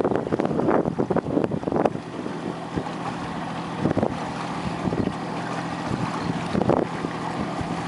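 A boat motor running steadily, with wind buffeting the microphone in gusts for about the first two seconds.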